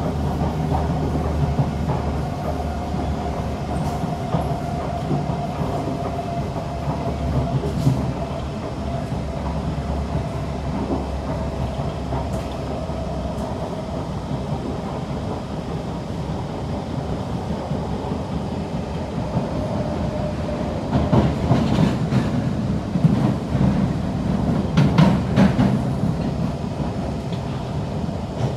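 Kawasaki C151 metro train running at speed, heard from inside the car, with a steady traction-motor whine that falls slightly in pitch and a low hum that drops away about halfway through. About three-quarters of the way through, the wheels clatter and knock over the rails more loudly for a few seconds.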